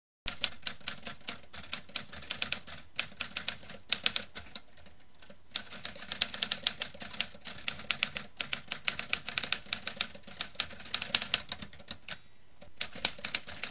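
Typewriter keys clacking in fast runs of strokes, with two short pauses, one about five seconds in and one shortly before the end.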